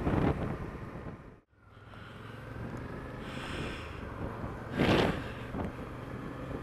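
Suzuki V-Strom motorcycle riding along at road speed, its engine running under wind noise on the helmet camera's microphone. The sound drops out briefly about a second and a half in, and there is a louder rush of noise about five seconds in.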